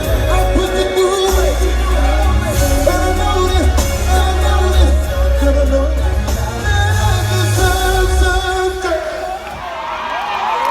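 Live R&B band with a male singer, heavy bass under the melody; about nine seconds in the bass drops away and held notes carry on.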